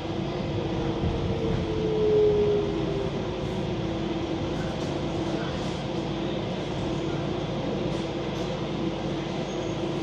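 Docklands Light Railway train running, heard from inside the carriage: a steady rumble and hum, with a brief falling whine about two seconds in.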